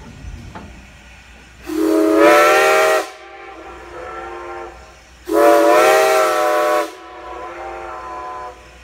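Steam locomotive No. 90's chime whistle blown in two long blasts, each about a second and a half, with the sound echoing back more faintly off the surrounding land after each blast.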